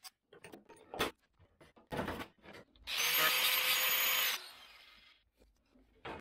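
A small cutoff tool with a thin abrasive wheel briefly running free for about a second and a half, then spinning down. Around it are a few light knocks and scrapes of the tool and the cut-out sheet metal being handled.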